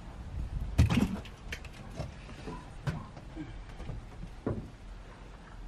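A few irregular knocks and thumps, the loudest about a second in, from bluefish being handled in a fiberglass boat.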